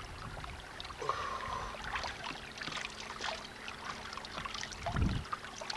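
Cold spring water trickling and splashing as it is scooped up in cupped hands to drink, with many small irregular splashes and a low bump about five seconds in.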